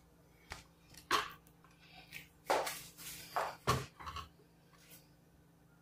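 Light handling noise: a few soft knocks and rustles, spaced irregularly over the first four seconds.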